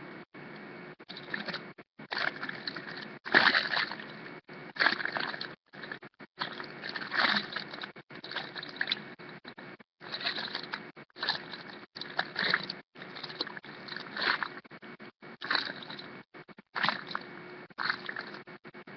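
Rustling, crackling handling noise as squishy toys are handled. It comes in uneven bursts with many brief dropouts.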